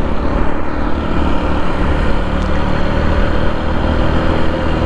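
Motorcycle engine running under light throttle as the bike speeds up, its note rising slightly, with heavy wind rumble on the microphone.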